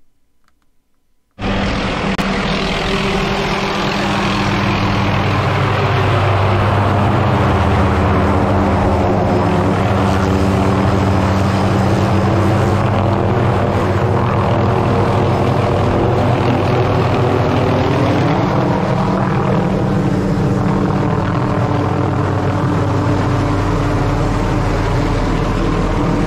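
Helicopter flying overhead, its rotor and engine loud and steady, starting abruptly a moment in; the pitch dips and recovers slightly now and then as it moves.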